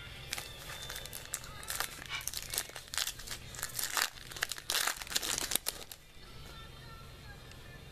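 Foil wrapper of a baseball card pack being torn open and crinkled by hand. The crackles come in a quick irregular run and stop about six seconds in.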